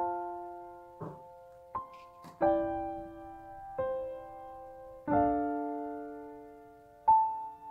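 Background piano music: slow chords and notes struck every second or two, each left to ring and fade.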